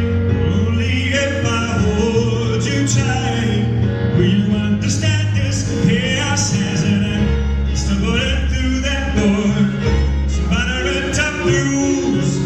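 Live band performance of a pop song: a male voice singing over a string arrangement with sustained bass notes.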